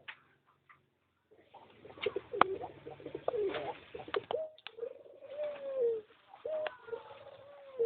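Balam doves cooing: a run of low, drawn-out coos, some bending in pitch, with a few sharp clicks in between.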